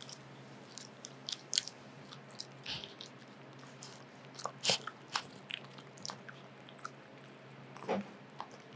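Dog licking and chewing at something on the table top: short wet clicks and smacks at irregular intervals, a few louder ones about halfway through and near the end, over a faint steady low hum.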